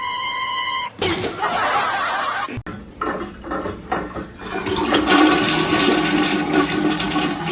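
A steady beep-like tone for about the first second, then a loud rush of water that runs on, broken by an abrupt cut about two and a half seconds in, with a steady pitched whine under the rushing in the second half.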